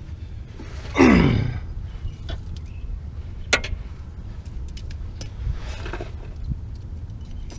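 Metal parts and tools being handled while fitting a Jeep rear driveshaft: a loud sound that falls quickly in pitch about a second in, a sharp metallic click a couple of seconds later, and light clinks over a steady low background rumble.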